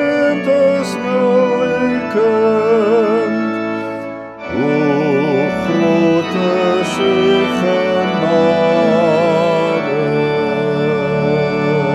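Church organ playing a slow hymn tune in sustained chords, with a wavering melody on top. It breaks off briefly about four seconds in, then begins a new phrase.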